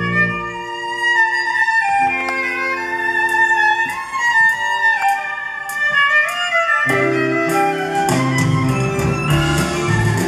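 Instrumental passage after the last verse of a song played live: a violin plays a sliding melody over held accordion chords. About seven seconds in, the rest of the band comes back in with a steady rhythm.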